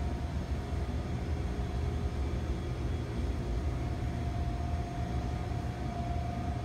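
Steady drone of commercial kitchen machinery: a constant low rumble with a thin, unchanging hum above it.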